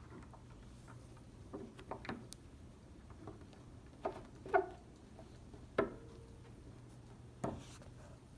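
Scattered light clicks and knocks, about seven in all, from a battery cable, a crimp terminal and tools being handled on a work surface; a few clinks carry a brief metallic ring. A faint steady low hum runs underneath.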